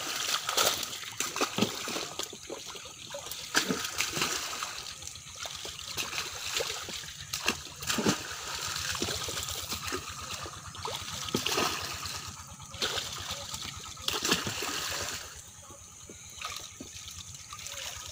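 Water splashing and sloshing in irregular bursts as fish thrash in shallow water inside a drawn net and men grab at them by hand.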